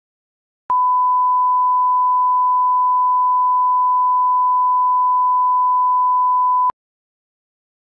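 1 kHz line-up reference tone, the steady pure test tone that runs with broadcast colour bars for setting audio levels. It switches on about a second in, holds for about six seconds, and cuts off abruptly, with a slight click at each end.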